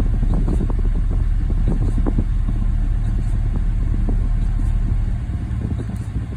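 Car subwoofer playing deep bass through the cabin, a steady heavy low rumble that drops noticeably in level about five seconds in, with the wireless bass knob controlling the subwoofer level.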